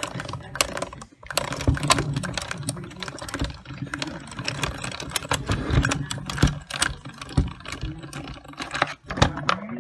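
Small die-cutting machine drawing a stacked plate, die and self-healing cutting mat through its rollers, with a rapid, irregular run of clicks and crackles over a low steady hum.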